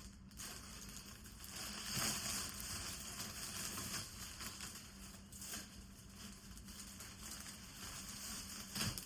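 Faint rustling and crinkling of plastic packaging and clothing being handled, with a few brief louder rustles.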